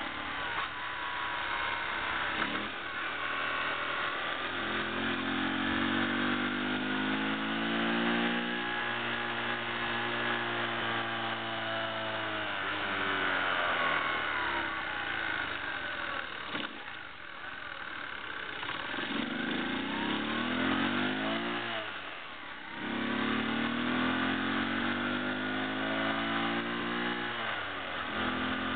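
Honda C70 Passport's small single-cylinder four-stroke engine running under way, its pitch climbing and dropping several times as it accelerates and eases off.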